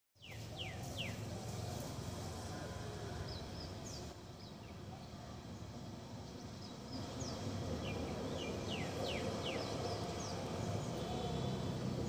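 Outdoor background noise with scattered short, high chirps from small birds, several of them in quick clusters.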